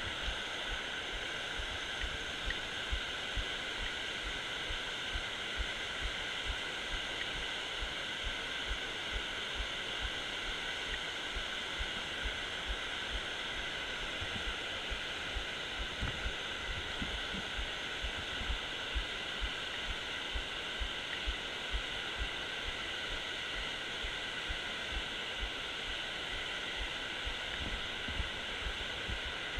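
Steady rush of creek water spilling over a low concrete dam, with frequent soft low thumps underneath.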